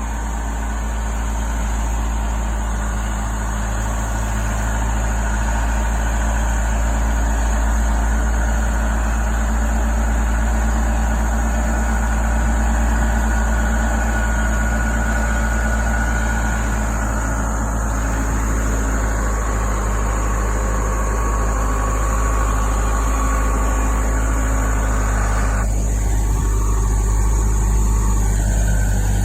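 Diesel engine of a backhoe loader running steadily while it plows snow, with a strong low hum; the engine note shifts about two-thirds of the way through and again near the end.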